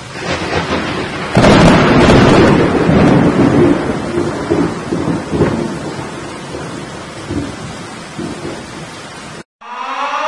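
Thunderstorm with rain: a loud thunderclap about a second and a half in, then rolling rumbles that slowly fade. It cuts off near the end, and a siren begins to rise.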